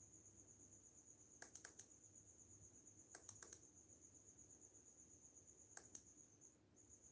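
Faint, steady high trill of a cricket, pulsing finely and pausing briefly near the end. Three short clusters of light clicks fall about a second and a half, three and a half, and six seconds in.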